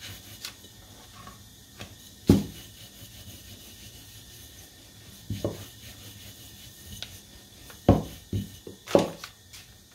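Scattered knocks and light clatter of kitchen things being handled on a wooden board while food is prepared: one sharp knock about two seconds in, another near the middle, and a few close together near the end.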